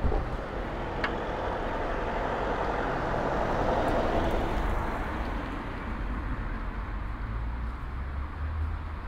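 A car passing by on the street: its road noise swells to a peak about four seconds in and fades away, over a steady low rumble of traffic. A short click about a second in.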